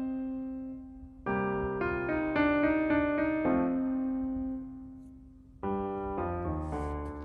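Background piano music: gentle chords struck and left to fade, with new phrases coming in about a second in and again near the end.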